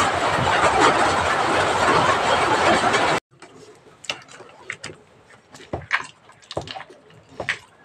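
Wet honeycomb being crushed by hand in a plastic bucket: a loud, dense, sticky crackling. It stops abruptly about three seconds in, followed by a metal spoon scraping and clinking in a steel pot as crushed comb and honey are scooped out, a few sharp knocks at a time.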